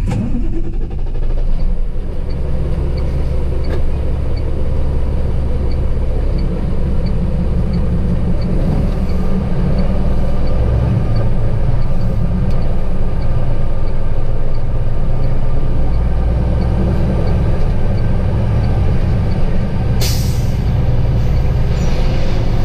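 Semi-truck diesel engine running with a steady low rumble, heard from inside the cab as the truck moves off. About 20 seconds in comes a short, sharp hiss of air, typical of the truck's air brakes.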